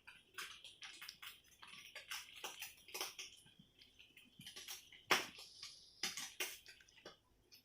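Faint, irregular clicks, rustles and scrapes from handling food and kitchenware while adding seasoning to a bowl of instant fried noodles. The sharpest click comes about five seconds in.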